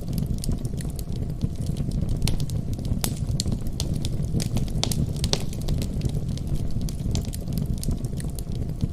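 Fireplace fire crackling: a steady low rumble of flames with frequent, irregular sharp pops and snaps.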